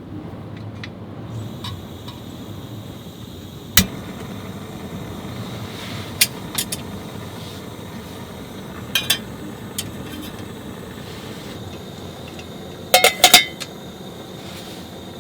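Light clinks and knocks of handled objects, single ones spread through and a quick cluster near the end, over a low steady rumble.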